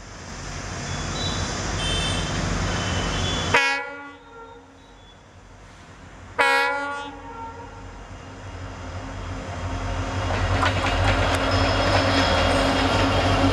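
Two short blasts on a WDG4 diesel locomotive's horn, about three seconds apart, the second a little longer: a greeting from the loco pilot. Then the running diesel engine and wheels get steadily louder as the locomotives pass close by.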